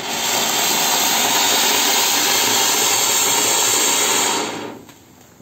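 Anar (flower-pot fountain firework) spraying sparks with a loud, steady hiss that dies away about four and a half seconds in.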